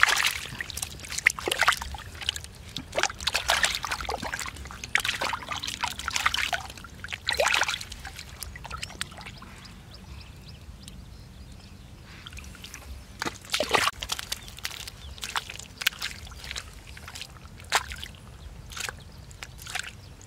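Hands sloshing and splashing in shallow muddy water while groping for fish, in irregular bursts of splashes. There is a quieter stretch about eight seconds in, and the splashing picks up again a few seconds later.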